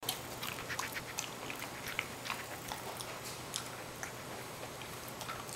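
A small dog eating chunky food from a stainless steel bowl: wet chewing and biting with irregular sharp clicks, several a second.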